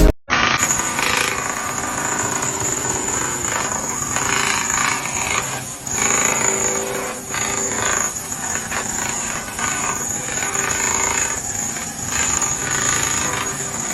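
A machine working: a harsh, uneven grinding noise with a steady high-pitched whine running over it.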